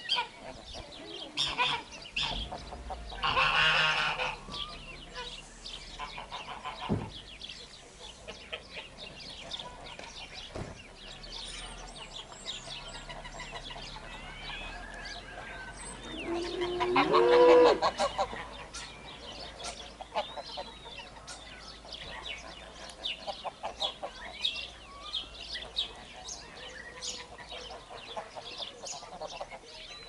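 A flock of domestic geese honking and calling back and forth. The calls come in scattered bursts, with louder bouts of honking about three seconds in and again around seventeen seconds in.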